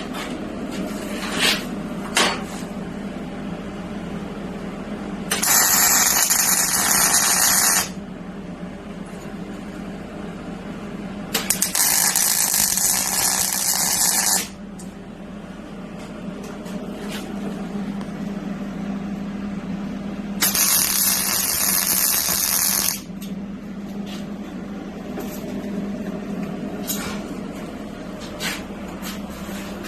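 MIG welder, running .030 wire with 75/25 gas, laying tack welds: three crackling, hissing arcs of about two to three seconds each, roughly six, twelve and twenty-one seconds in. A steady low hum runs under them.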